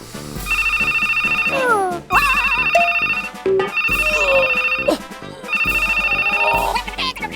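Telephone ringtone sound effect: a trilling electronic ring, sounding four times for about a second each, over children's background music. Falling and wobbling cartoon whistle effects sound between the first rings.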